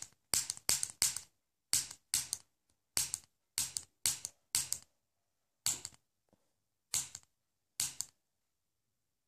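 A tiny handheld 'mini taser', a piezo spark clicker, pressed over and over, each press a sharp snap as it sparks. Irregular, about two clicks a second, with a short pause a little past halfway.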